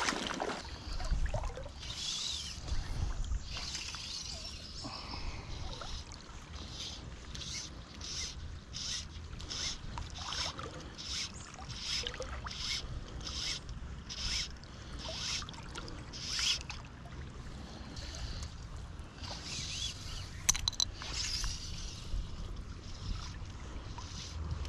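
Fly line being stripped in by hand on a streamer retrieve: a steady run of short swishes, about one and a half a second, over a low steady rumble.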